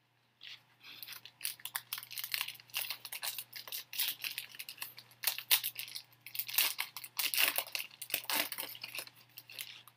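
A trading-card pack's plastic wrapper being torn open and crinkled by hand, a busy run of irregular crackling and rustling.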